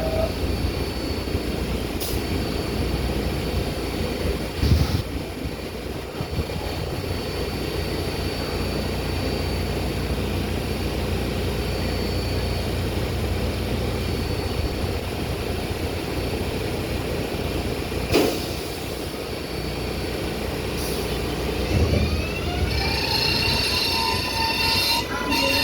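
R188 subway train running, heard from inside the car: a steady low rumble of wheels on rail with a few sharp knocks. Near the end the propulsion motors' whine rises in pitch.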